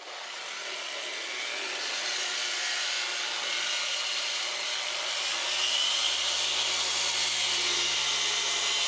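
Dual-action polisher running steadily with its pad pressed against painted aircraft skin, a continuous whirring hiss. This is the cutting-polish step of a paint correction, taking oxidation and fine scratches off the paint. A low motor hum joins about halfway through.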